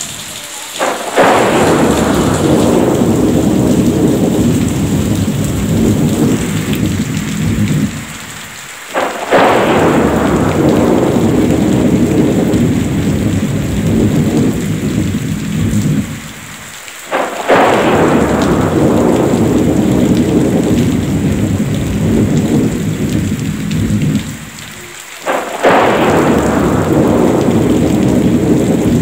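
Thunderstorm: heavy rain hissing, with a loud thunderclap crashing in four times, about every eight seconds, each rumbling away slowly.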